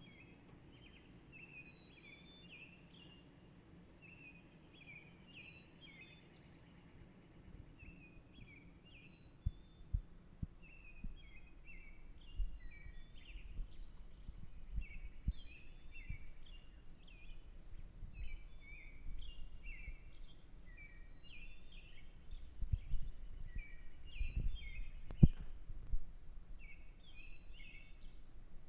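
Small songbirds chirping in quick, repeated short phrases, with higher trilled notes joining from about a third of the way in. From about ten seconds in, low thumps and bumps come through, the loudest near the end.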